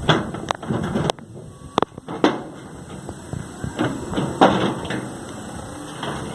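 Knocks and thumps of a homemade bicycle trailer with refrigerator-casing sheet-metal panels being pressed and loaded to test its strength. It gives a run of sharp knocks in the first couple of seconds, then heavier metal bangs about four seconds in.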